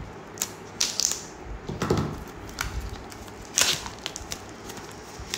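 Small cardboard retail box being opened by hand: scattered rustles, scrapes and taps of cardboard and plastic packaging. There is a low knock about two seconds in and a sharper crinkle, the loudest sound, a little past three and a half seconds.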